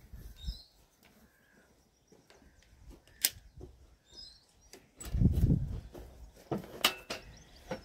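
Handling noises of a long wooden staff and a folding pruning saw on a wooden workbench: scattered knocks and clicks, with a heavier low thud about five seconds in as the pole is lifted and moved. Birds chirp faintly now and then.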